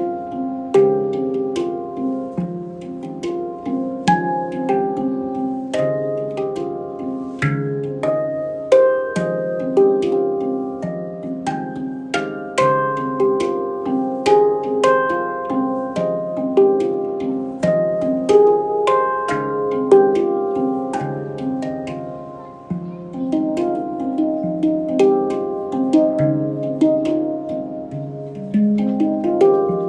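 Handpan played by hand: a continuous stream of struck notes that ring on and overlap into a melody, with a brief lull about two-thirds of the way through.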